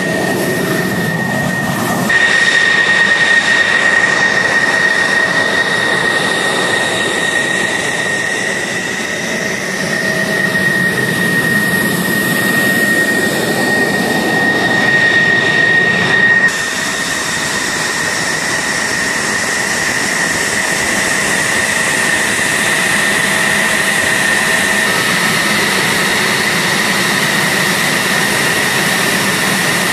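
F-16 fighter jet engines running at taxi power: a loud, steady jet whine with a high tone over a rushing noise. The sound jumps abruptly twice, about two seconds in and about halfway through.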